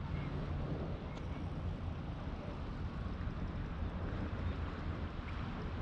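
Steady outdoor background noise: an even hiss with a low rumble underneath, as of wind and sea on an open harbour wall, with no distinct event.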